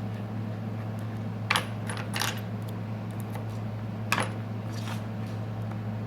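A few light, sharp clicks of small hard parts or tools being handled on a repair bench: one about a second and a half in, one just after two seconds, and one about four seconds in. A steady low electrical hum runs underneath.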